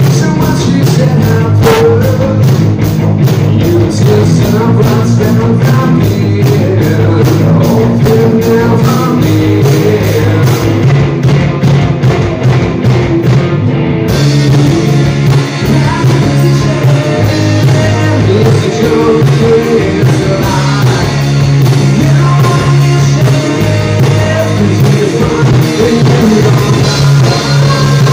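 A rock band playing live, with electric guitars, drums and a singer, in a heavier song. It is loud and steady, and the sound gets brighter about halfway through.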